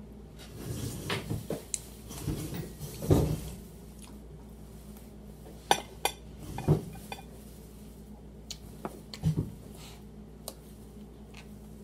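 A metal fork scraping and clinking against a dinner plate as food is cut and picked up: scraping in the first three seconds or so, then a handful of short, sharp clinks.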